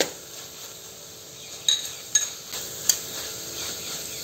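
Metal spoon stirring and scraping browned onions and tomato in a metal pot, with a few sharp clinks against the pot over a faint steady sizzle.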